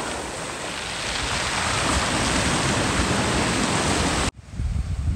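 Strong sea surf washing up over a beach of rounded pebbles, a steady rushing hiss. About four seconds in it cuts off abruptly, leaving a low rumble of wind on the microphone.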